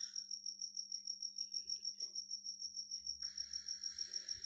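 Cricket chirping steadily, a high pulsed note repeating about six times a second, over a low steady hum.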